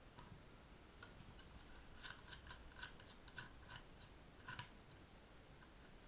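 Faint, quick metallic clicks and ticks of a small Phillips screwdriver turning the screws out of a 2.5-inch laptop hard drive's metal mounting bracket. A run of about a dozen clicks starts about two seconds in and stops around four and a half seconds.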